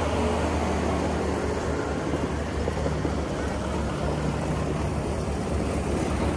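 Tractor engines running steadily with a low hum.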